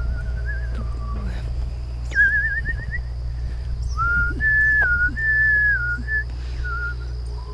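A person whistling a slow tune: held notes with short glides and quick warbling trills, over a steady low rumble.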